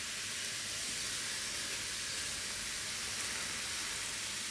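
Tandoori chicken sizzling on a hot sizzler platter as butter is brushed over it: a steady, even hiss.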